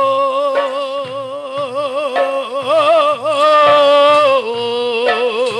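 A male burrakatha singer holding a long, wavering sung note, dropping to a lower note near the end, over soft steady drum beats.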